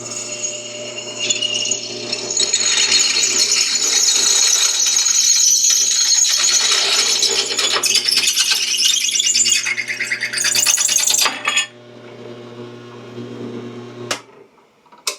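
Drill press running with a steady motor hum as its bit cuts through a hardened steel bracket, a loud high-pitched grinding screech from about two seconds in until near twelve seconds. The motor then spins on alone for a couple of seconds before stopping, and a short click follows.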